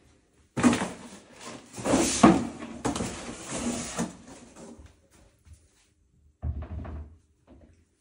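Long white flat-pack cabinet side panel being picked up and handled: scraping and rubbing with several sharp knocks of the board, then a second, shorter bout of knocking with a low thump about six and a half seconds in.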